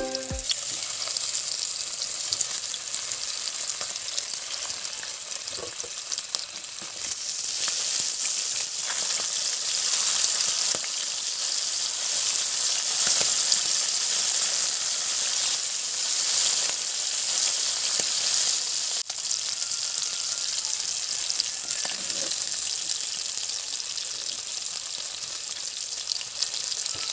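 Whole fish shallow-frying in hot mustard oil in a pan: a steady sizzle with small pops.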